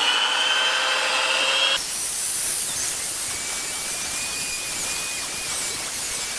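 Electric drill spinning an 800-grit sanding disc, wet-sanding a plastic car headlight lens. It starts as a steady motor whine and changes abruptly about two seconds in to a hissing scrub with a fainter whine.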